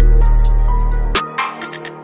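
Background music with a drum beat and a heavy bass line; the bass and beat drop out a little past halfway, leaving a thinner, quieter stretch.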